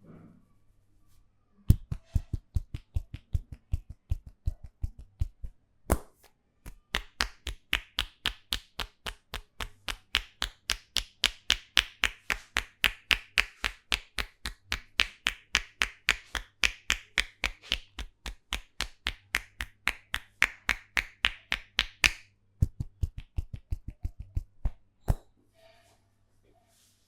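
A barber's hands striking a man's head in quick rhythmic massage slaps, about three to four a second. They start as deeper thuds, turn to sharper, clap-like strikes for most of the run, and go back to thuds before stopping with one last strike.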